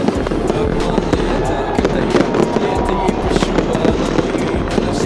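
Fireworks going off in a rapid, continuous run of bangs and crackles.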